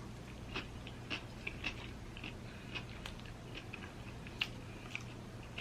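A person chewing a mouthful of food close to the microphone: irregular soft, wet mouth clicks, about one or two a second.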